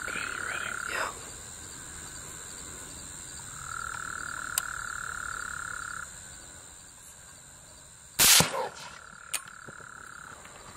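Frogs trilling in long spells of a few seconds each over a steady high insect buzz. About eight seconds in, a single loud rifle shot cracks out.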